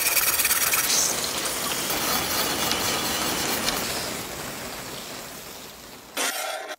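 Steady hiss of liquid on a rusty metal plate, fading over the last few seconds, then a short burst of spray from a garden-hose nozzle near the end.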